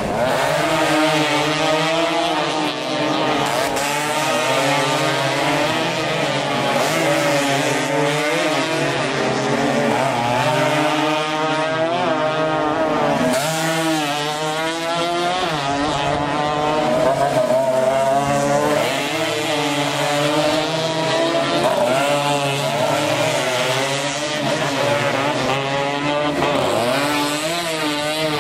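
Several small 115 cc racing motorcycles at full throttle, their engines revving up and down and overlapping one another as they pass.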